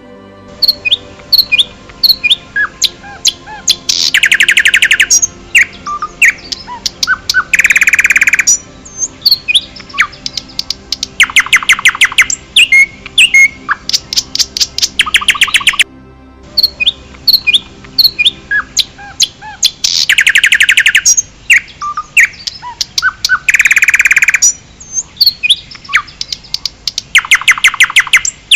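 Songbirds singing in a forest: scattered short chirps and whistled notes, broken every few seconds by loud, fast trills of rapidly repeated notes.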